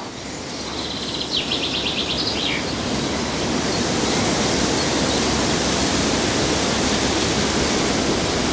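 Steady rushing outdoor noise that swells over the first few seconds and then holds, with a short run of quick bird chirps about a second in.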